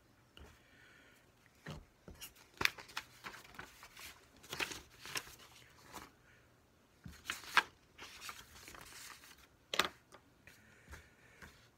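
Paper rustling and crackling as sheets are handled, in irregular bursts of sharp crackles and scrapes.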